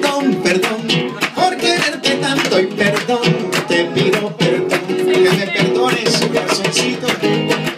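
Live acoustic guitar strummed in a steady rhythm, backed by hand percussion, in an instrumental break of a Latin ballad with no singing.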